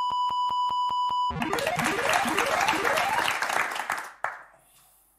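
Game-show word-validation sound: a steady electronic beep ticking about five times a second, one tick per letter, then a burst of applause-like noise mixed with rising electronic tones that marks a correctly found word. It fades out after about three seconds.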